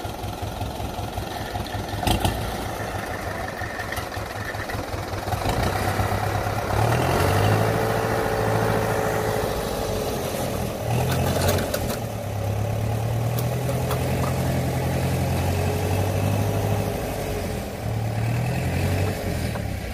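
Kubota DC-70 combine harvester's diesel engine running, louder from about six seconds in, its pitch stepping up and dipping several times as it is throttled. A few sharp knocks sound over it, around two seconds in and again near the middle.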